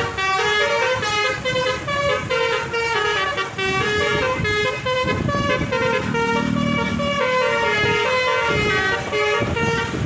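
Bus Basuri telolet horn playing a tune, a quick run of steady, stepped horn notes one after another.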